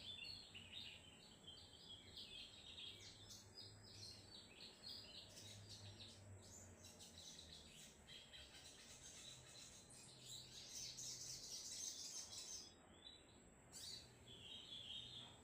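Sogon (mountain tailorbird) singing busily in the rapid 'trotol' style: a stream of short high chirps and trills, densest and loudest about ten to twelve seconds in.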